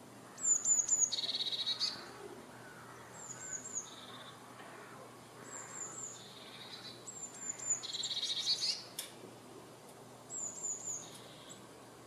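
Great tit calling: about five phrases, each a quick run of thin high notes followed by a buzzy churr.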